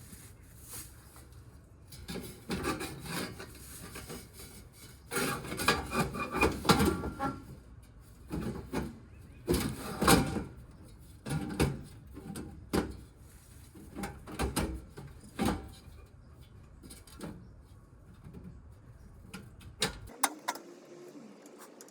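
Irregular rubbing, scraping and knocking of parts and tools being handled, in clusters with short pauses, tapering to scattered clicks near the end.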